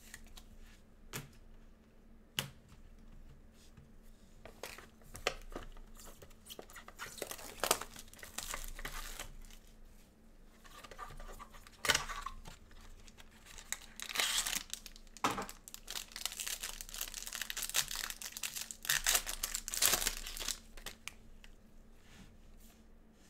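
Plastic wrapper of a trading card pack crinkling and tearing as gloved hands rip it open and work the cards free. It starts with a few scattered clicks and taps, then comes in irregular crinkly bursts from about five seconds in until near the end.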